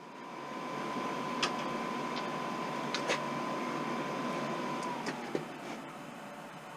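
Chinese diesel heater's fan running with a steady whine through its shutdown cycle, burning off the fuel left in the combustion chamber, then winding down with a falling pitch about five seconds in. A few short sharp ticks are heard along the way.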